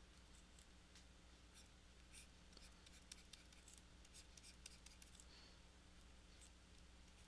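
Faint, scattered scratches and taps of a stylus on a drawing tablet as lines are sketched, over a low steady electrical hum.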